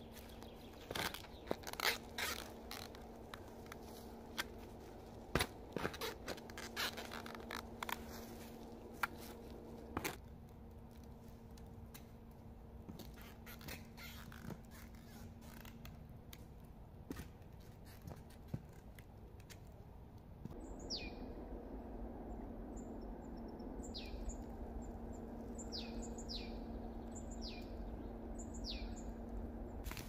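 Steel spade cutting into and scraping through forest soil: a run of sharp scrapes and knocks through the first ten seconds or so, then thinning out. Later a bird calls with about six quick falling whistles over the last ten seconds.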